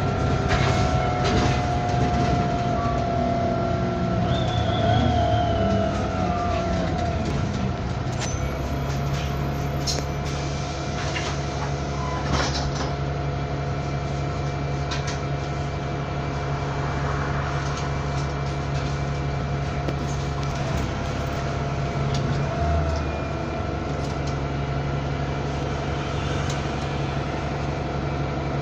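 Bus 27244 in motion, heard from inside: a steady low engine drone, with a wavering whine that fades out about six seconds in. Scattered rattles and clicks come through, part of the odd noises this bus makes.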